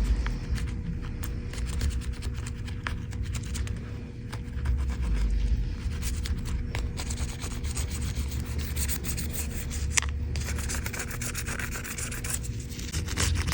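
Scrubbing and scraping at thick, caked-on grime on an iPhone's frame: a dense run of small scratchy rubbing strokes that gets busier about halfway through, over a steady low hum.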